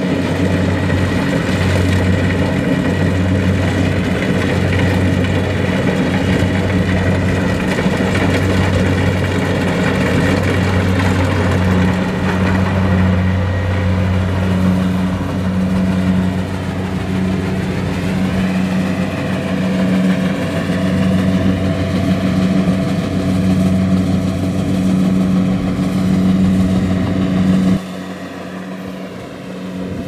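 Kubota DC-70 Plus rice combine harvester running steadily under load as it cuts and threshes rice: a loud, deep engine hum with the whir of its machinery. It passes close by about halfway, and the sound drops suddenly near the end.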